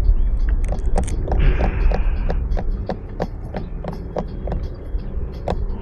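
Wind buffeting the microphone in a low rumble, with a run of short, fairly regular clicks about three or four a second and a brief hiss near the two-second mark.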